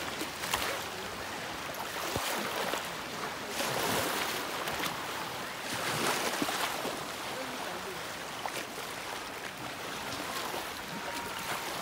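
Small waves lapping and washing against the shoreline and driftwood logs, swelling and falling away every couple of seconds.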